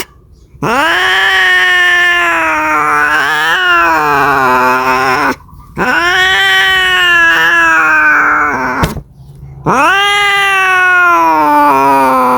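Cat yowling, caterwauling in three long drawn-out calls of several seconds each with a wavering pitch and short breaks between them: the mating call of a cat calling for a mate.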